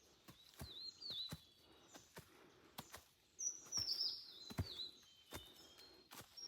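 Small birds singing: short whistled notes that dip in pitch, with a brighter run of falling high notes about three and a half seconds in, over the steady clicks of footsteps on a trail.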